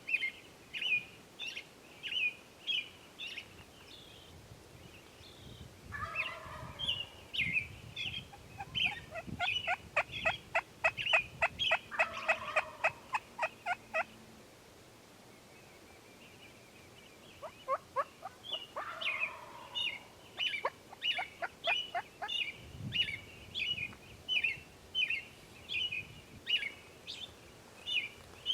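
Wild Merriam's turkey gobbling in two rattling bouts, one starting about six seconds in and a shorter one a few seconds later. Through the rest, a small bird's chirps repeat about twice a second.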